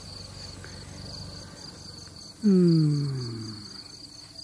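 Night insects chirping steadily, a high pulsed trill repeating about four times a second. About two and a half seconds in, a man's voice makes a loud, drawn-out sound that falls in pitch and lasts over a second.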